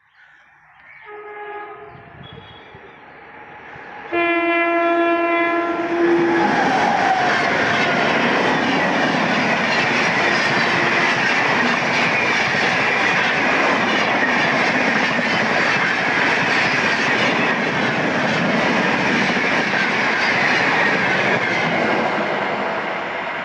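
An express train's horn sounds twice: a faint short blast about a second in and a loud two-second blast about four seconds in. The train then passes at high speed, around 130 km/h, with a steady rush of wheel and rail noise and clickety-clack that begins to fade near the end.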